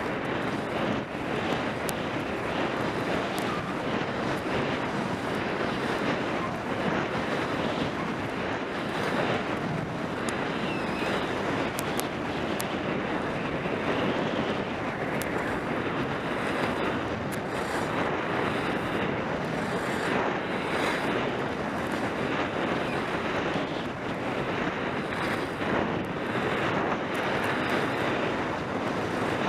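Steady wind noise on the camera microphone mixed with the hiss of skis sliding and carving on packed snow during a downhill run.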